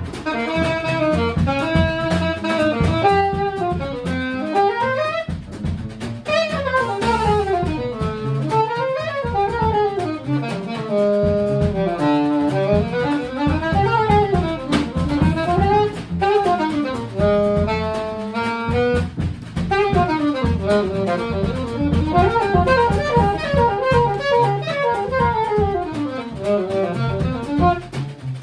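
Live jazz combo: a saxophone plays a solo line of quick runs rising and falling, over plucked double bass and drum kit.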